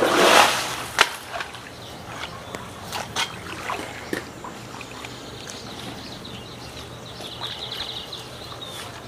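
A splash in the lake water, lasting under a second, followed by a few light clicks and a brief fast rattle near the end.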